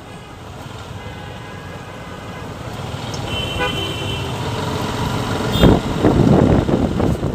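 Road traffic with car horns honking; one horn sounds about halfway through. The din grows louder in the last couple of seconds.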